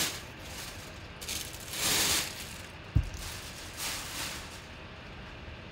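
Clear plastic bag crinkling and rustling in several bursts as a full-size football helmet is worked out of it, with a single thump about three seconds in.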